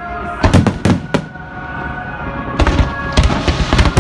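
Fireworks going off: a rapid series of sharp bangs about half a second to a second in, then another cluster from about two and a half seconds to near the end, over steady held tones.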